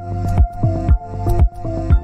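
Background music with a steady beat, about two beats a second, over sustained bass notes and chords.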